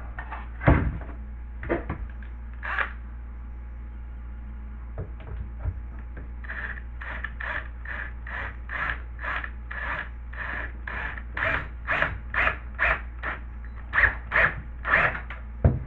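A screw being driven into a drywall patch piece: after a few scattered scrapes and knocks, a steady run of short squeaky scraping strokes, about two or three a second, sets in about six seconds in.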